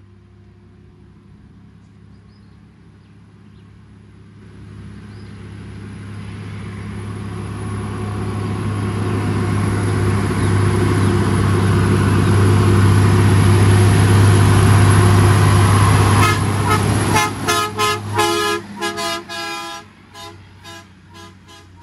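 A truck engine grows steadily louder as it draws near. Then a horn sounds in a rapid series of short toots.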